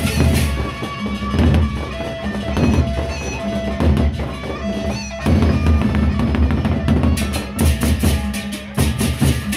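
Gendang beleq ensemble playing: large Sasak double-headed barrel drums beaten with sticks and hands over held pitched notes. A bright clashing wash, typical of the ensemble's cymbals, drops out about half a second in and comes back in short spurts near the end.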